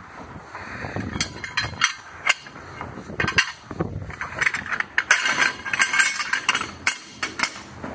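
Slotted metal plates clinking and clattering against one another as they are picked up and handled, a string of separate metallic knocks that comes thicker and louder about five seconds in.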